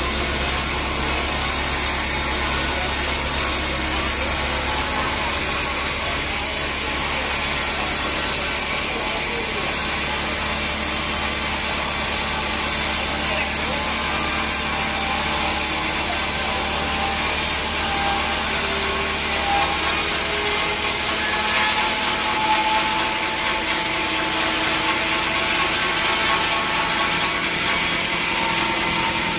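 Sawmill saw cutting steadily through a log: a continuous rasping hiss of the blade in the wood, with a low machine hum underneath that fades about halfway through.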